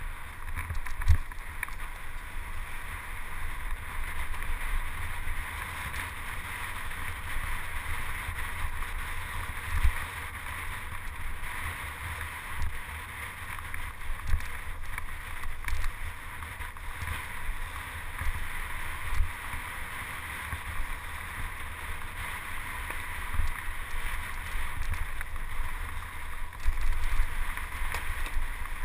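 Mountain bike riding down a dirt trail: steady tyre and ride noise with wind buffeting the microphone, and frequent knocks from bumps in the trail.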